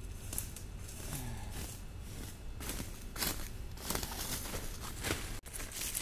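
Footsteps crunching and rustling through dry fallen leaves, uneven steps about one every half second to a second.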